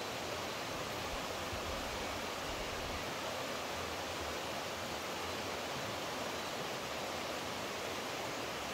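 Steady rushing of running water, an even hiss with no breaks or changes.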